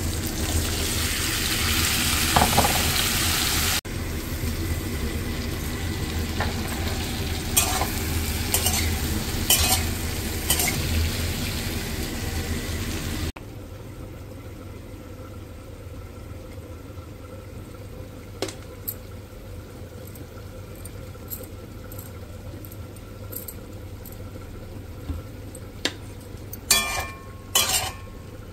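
Drumsticks and squash sizzling in hot oil in a steel kadai, with a steel spatula scraping and clicking against the pan. The sizzle drops abruptly to a quieter level about halfway through, and a run of sharp spatula knocks on the pan comes near the end.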